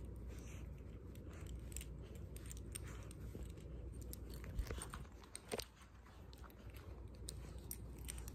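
Standard poodle puppy quietly mouthing and chewing a plush fox toy: soft scattered clicks and rustles, with a couple of louder knocks about halfway through.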